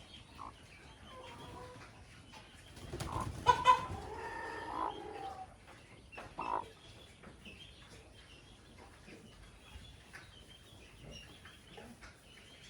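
Chickens clucking, with faint chirps in between. A cluster of sharp knocks or wing flaps about three seconds in is the loudest moment.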